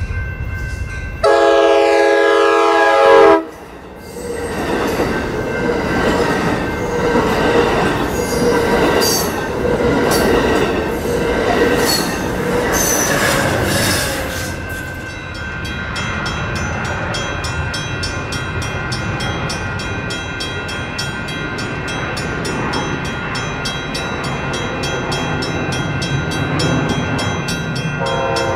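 A passenger train's horn sounds loudly for about two seconds near the start. The train then passes close by with its wheels clattering and squealing on the rails. After that comes a steadier rumble of another approaching commuter train, whose horn starts sounding just at the end.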